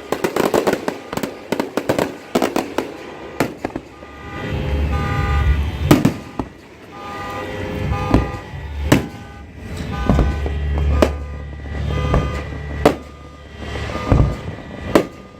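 Fireworks show: a dense spell of rapid crackling in the first few seconds, then a series of sharp booms every second or two over a low rumble, with short steady tones sounding alongside.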